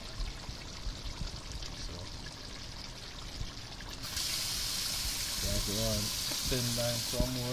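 A pot of stew pork bubbling at a boil. About four seconds in, a louder steady hiss comes in, and a voice sounds near the end.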